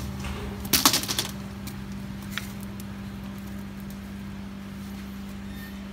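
A steady low hum runs throughout. About a second in comes a quick cluster of sharp clicks and crackles, then a single click a moment later.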